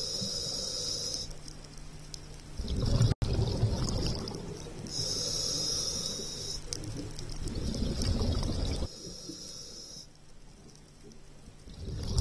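Scuba diver breathing on an open-circuit regulator, heard underwater. A hissing inhale through the regulator alternates with a rush of exhaled bubbles, about two full breaths, and another bubble rush begins near the end.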